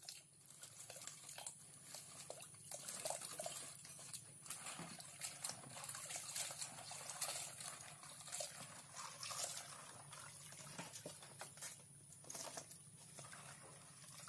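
Razor clams being swished around by hand in a bucket of water: irregular sloshing and splashing, with many short clicks of shells knocking together.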